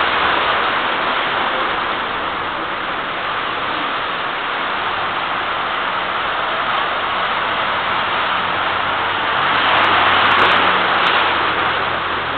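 Rushing flash-flood water: a steady, loud, even rush that swells a little about ten seconds in, with a faint low hum underneath in the second half.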